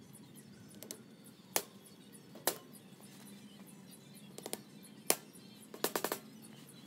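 Rubber mallet knocking plastic glides into the cast foot cups of a wrought iron patio chair: single sharp knocks about one and a half, two and a half and five seconds in, then a quick run of about four knocks around six seconds in. Faint background music underneath.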